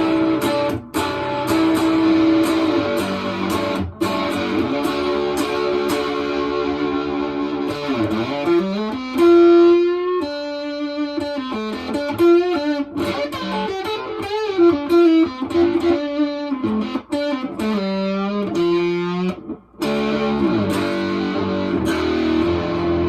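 Electric guitar played through a prototype harmonic percolator fuzz pedal set to a gritty overdrive. It starts with strummed, ringing chords, changes about eight seconds in to single-note lead lines with bends and vibrato, and goes back to held chords near the end.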